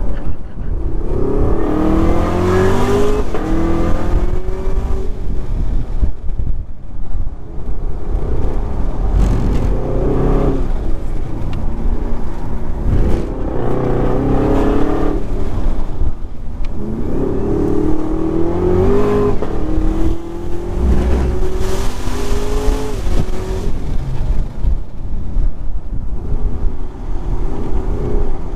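Camaro ZL1's supercharged V8 being driven hard around a track. The engine note climbs under full throttle and drops back several times as the car accelerates, shifts and slows for corners.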